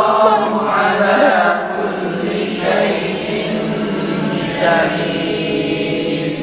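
Many voices reciting a Quran verse together in a melodic chant, repeating back the line the teacher has just recited in talaqi style; new phrases begin about two and a half and about four and a half seconds in.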